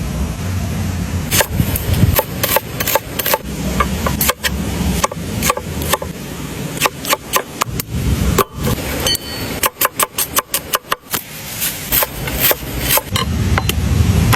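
Irregular sharp knocks of a blade chopping on a wooden board, with a quick run of about half a dozen strokes a second around ten seconds in, over a steady low rush of running water.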